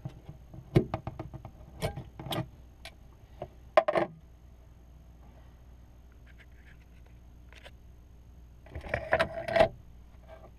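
Hard plastic and metal clicks and knocks as the speed transducer is fitted back into its housing in the hull by hand, over the first four seconds. After a quiet stretch, a quick cluster of rattling clicks comes about nine seconds in.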